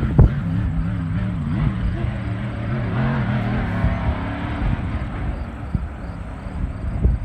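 Racing hydroplane engines running out on the water, a steady drone whose pitch wavers, over low rumble. There is a sharp thump just after the start.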